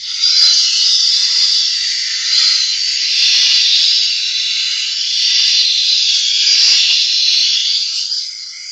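Steel knife blade held against a spinning sharpening stone wheel: a loud, steady, hissing grind that swells and eases slightly as the blade moves, starting suddenly and tailing off near the end. This is a smoothing pass on the edge.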